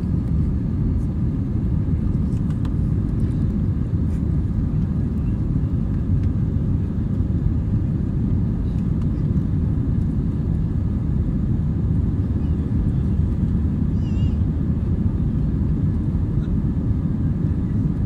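Steady cabin noise of an Airbus A320-family jet climbing after takeoff: an even, low rumble of engines and airflow heard inside the cabin over the wing.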